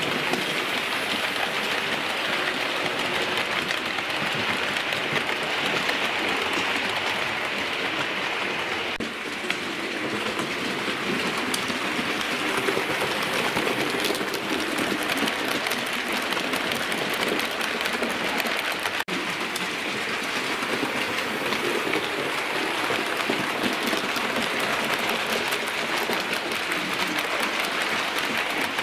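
Hornby OO gauge A4 model locomotives and their carriages running on model railway track: a steady rolling rattle of metal wheels with fast, fine clicking over the rail joints, as two trains pass close by side by side.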